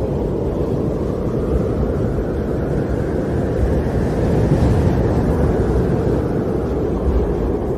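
Storm wind blowing steadily, a low rushing noise that swells a little about halfway through.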